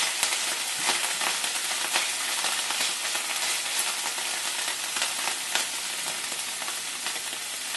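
Chopped garlic, ginger and jalapeños sizzling steadily in a hot frying pan, with a few light scrapes of a silicone spatula stirring them.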